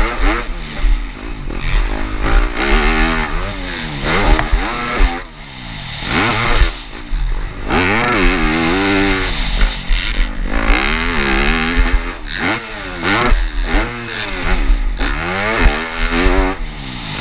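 Yamaha four-stroke motocross bike's engine revving up hard and dropping off again and again as it is ridden over jumps, heard from the rider's helmet camera. There are a few sharp thumps along the way.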